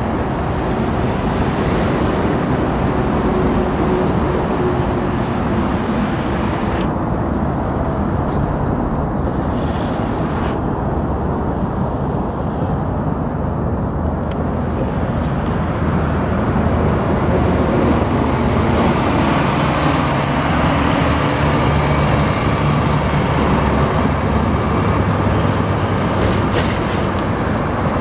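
Scania K400 double-decker coach's six-cylinder diesel engine running as the bus moves off, its note climbing and getting louder through the second half as it pulls away under power.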